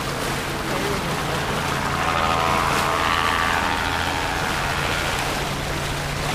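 Water rushing and splashing along the hull of a C&C 39 sailboat sailing heeled, mixed with wind buffeting the microphone: a steady, loud rushing hiss.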